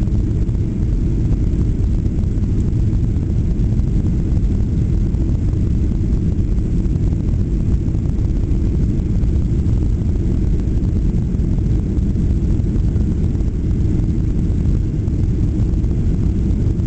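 Steady low rumble of a Boeing 737-800's CFM56-7 jet engines and rushing air, heard from inside the passenger cabin while climbing after take-off.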